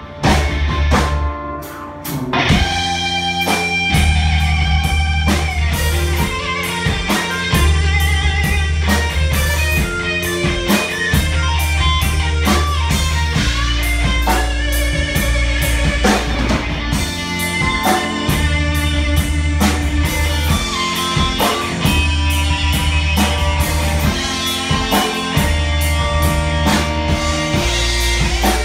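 Live rock band jamming: electric guitar over a drum kit and bass, played at a steady beat. The playing drops back briefly in the first two seconds, then the full band comes back in.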